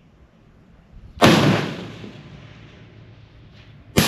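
Two rifle shots, one about a second in and one near the end, each sharp and loud with a long echo fading behind it.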